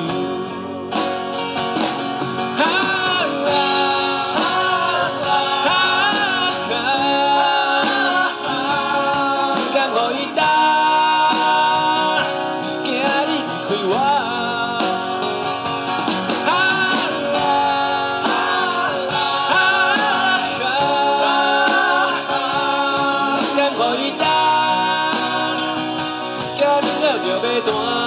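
Live acoustic band performance: two acoustic guitars playing under a man's singing voice.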